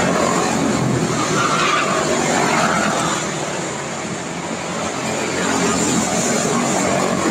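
A pack of quarter midget race cars lapping a small oval, their single-cylinder Briggs & Stratton Animal engines buzzing together at racing speed. The sound eases a little about halfway through as the pack reaches the far side of the track, then swells again as the cars come back toward the camera.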